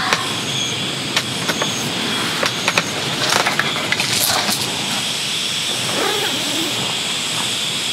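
Steady, even hiss of water, with scattered soft ticks during the first three seconds and a brief rustle about three and a half seconds in. Faint short high peeps come about once a second near the start.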